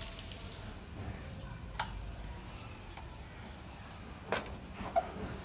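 A few light clicks and knocks, one about two seconds in and another a little past four seconds, as plastic toy cups and containers are handled on a tiled floor.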